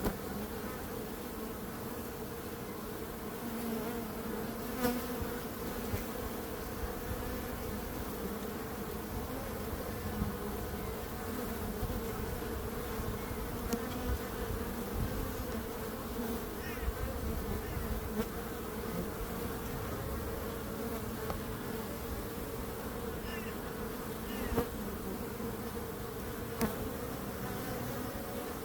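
Many bees buzzing at once in a steady drone, with the pitch of single bees rising and falling as they fly past, and a few faint ticks.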